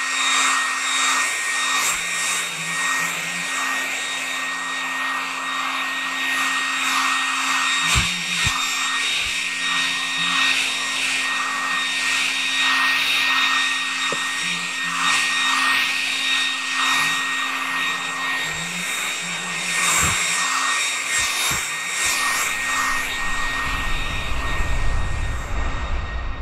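Hair dryer running steadily in a binaural 3D-audio recording: a constant high-pitched motor whine over the rush of blown air.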